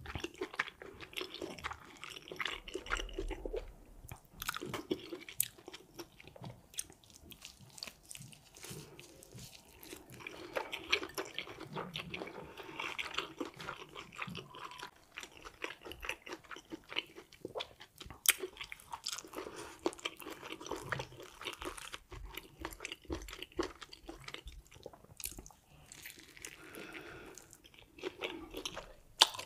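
A person chewing and biting crispy noodle wraps close to the microphone: crunching and wet chewing with many small sharp crackles.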